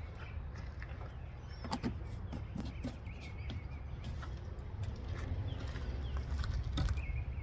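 Steady low outdoor rumble with a few short clicks and knocks about two seconds in and again near the end, and faint bird chirps.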